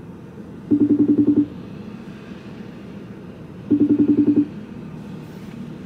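Telephone ringing tone of a call waiting to be answered: two short fluttering buzzes about three seconds apart, over a steady low hum.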